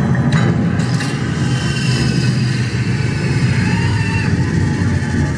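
Spaceship engine sound effect played over a PA during an automatic docking sequence: a steady low rumble with faint gliding tones above it.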